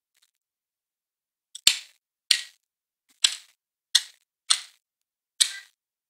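Black woodpecker chiselling into a tree trunk with its bill: six sharp, separate blows on the wood, unevenly spaced about half a second to a second apart, each with a short ringing tail.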